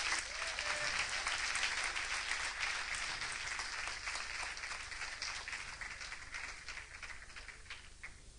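Audience applauding, a dense patter of many hands clapping that gradually thins and dies away near the end.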